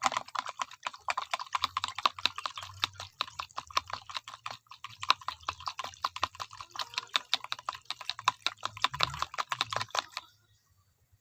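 Rapid clicking of a utensil knocking against the container, several times a second, as ground pepper is stirred into water; it stops suddenly about ten seconds in.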